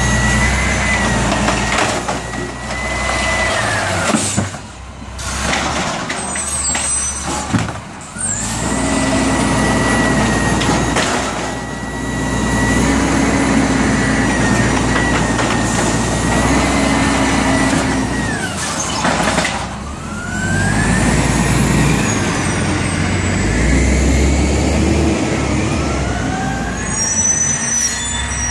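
Automated side-loader garbage truck working its lift arm: the diesel engine revs up and settles again and again to drive the hydraulics, with a steady high hydraulic whine that bends down and back up as the arm cycles. A few sharp hisses or clanks come between about four and eight seconds in.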